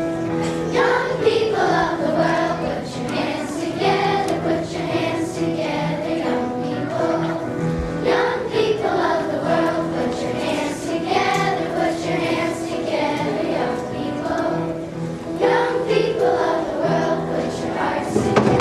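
Young girls singing a song over instrumental accompaniment that holds steady chords underneath.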